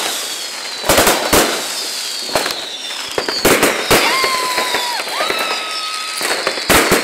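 Fireworks and firecrackers going off: sharp bangs at irregular intervals over continuous crackling, with several whistles, most falling slowly in pitch.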